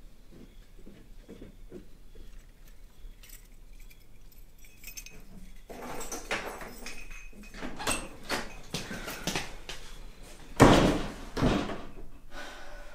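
Hard objects knocking and clattering, faint at first and busier from about six seconds in, with two loud bangs close together about eleven seconds in.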